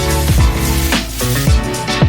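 Electronic music with a steady beat: a thudding kick drum about twice a second under sustained synth chords.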